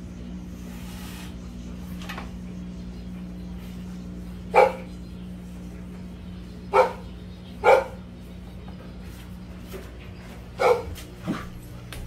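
Puppy barking: four short, sharp barks spread over several seconds, with a couple of fainter ones.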